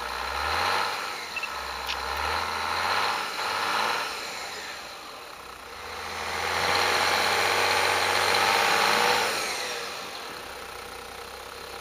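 Toyota Land Cruiser 100-series 4x4 engine revving in surges while its tyres spin in snow, pulling the truck out of a roadside ditch. The longest and loudest surge comes from about six to nine and a half seconds in, then the engine eases off.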